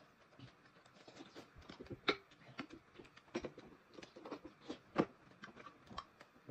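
Faint eating sounds at a dinner table: chewing and mouth noises with irregular small clicks of chopsticks against bowls and plates, a couple of them a little louder about two and five seconds in.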